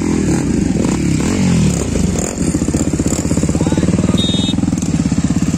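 Motorcycle engines running at low speed close by, a steady fast throb from the bikes riding slowly in a group. A brief high beep sounds about four seconds in.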